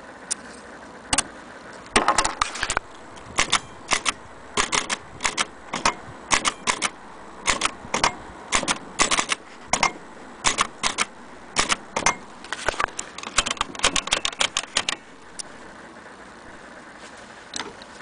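Bar-Let vintage portable typewriter being typed on: an irregular run of sharp clacks as the typebars strike the paper, lasting about fifteen seconds, then one last clack near the end.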